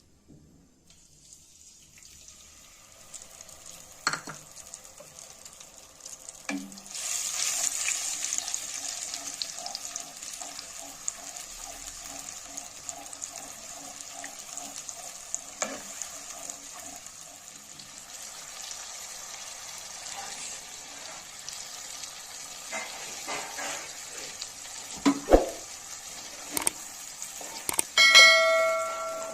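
Food sizzling as it fries in a pan, growing louder a few seconds in, with stirring and occasional sharp knocks of a utensil against the pan. Near the end comes a short ringing tone.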